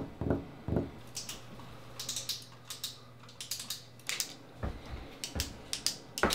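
Fingers drumming on a desk: a few dull thumps at the start and again near the end. Between them come quick, irregular clicks and taps of restless fidgeting.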